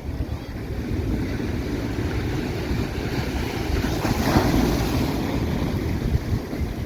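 Surf washing on a sandy beach with wind buffeting the microphone; a wave breaks and swells louder about four seconds in.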